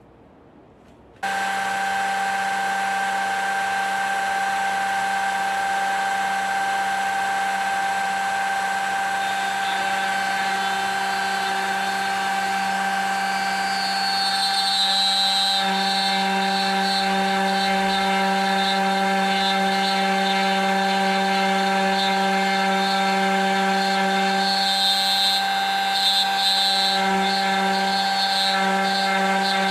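Trim router on a homemade manual copy router switched on about a second in and running steadily at high speed with an even whine. About halfway through it gets a little louder and shriller.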